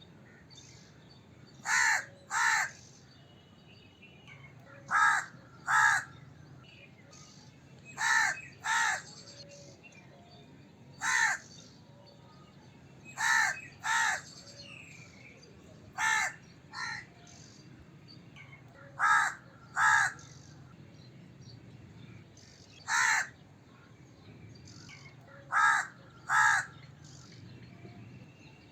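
Crow cawing: harsh caws, mostly in pairs a little under a second apart, with a pair or a single caw about every three seconds.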